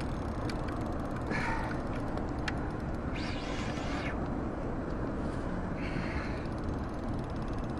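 An angler fighting a big beluga sturgeon on a spinning rod and reel: a steady low rumble runs throughout, broken by a few short raspy hisses, the longest about three seconds in.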